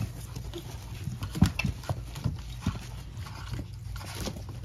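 Three-week-old puppies nursing from their standing mother dog while she licks them clean: irregular wet suckling and licking sounds with scattered small knocks and shuffles.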